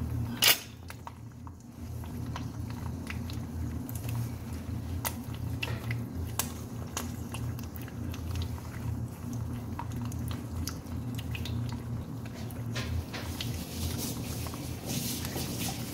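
A sharp knock of a frying pan on a glass cooktop about half a second in. Then a steady low kitchen hum runs on, with scattered small clicks and crackles.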